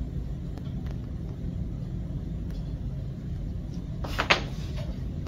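Steady low room rumble with a brief knock about four seconds in, as hands handle tools on a wooden work block.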